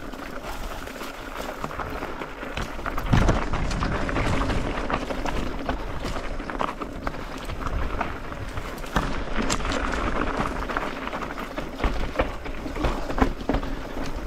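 Mountain bike ridden over a rough rocky singletrack: tyres crunching on loose stones and the bike rattling, with frequent sharp knocks as it rolls over rocks.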